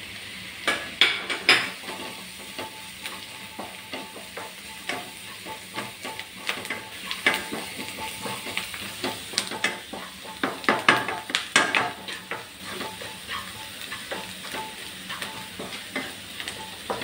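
Onions and spice powders frying in oil in a non-stick kadai, stirred with a wooden spatula: a steady sizzle with frequent irregular scrapes and taps of the spatula against the pan.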